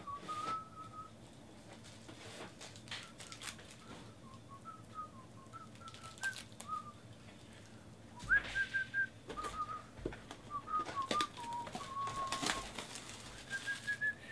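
Whistling: a meandering tune of short clear notes, some sliding up or down, with scattered clicks and rustles of the card boxes being handled.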